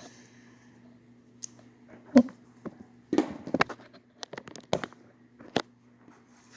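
Scattered sharp clicks and small metal knocks as a Maxtech dimple lock, a Multi-Lock Classic clone, is handled and taken apart, the loudest knock about two seconds in and a quick cluster around three to four seconds.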